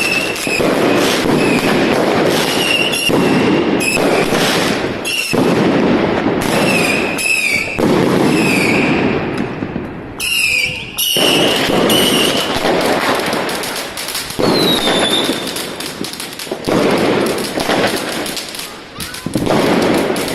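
Consumer fireworks firing in rapid succession, shot after shot of bangs and crackling bursts, with short high whistles among them.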